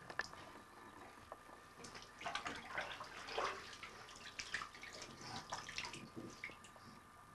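Water splashing in a bathtub as a baby is washed by hand: irregular small splashes and trickles, busiest from about two seconds in.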